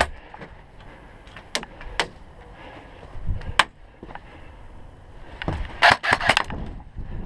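Airsoft guns firing single shots: sharp cracks about a second and a half in, again at two seconds and near three and a half seconds, then a quick cluster of several shots around six seconds.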